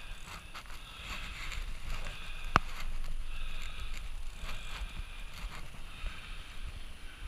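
Bicycle riding: a steady, pulsing rolling noise with wind rumble on the microphone, and one sharp click about two and a half seconds in.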